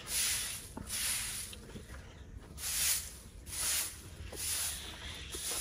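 Short-handled straw broom sweeping leaves across a concrete floor, one dry swish about every second.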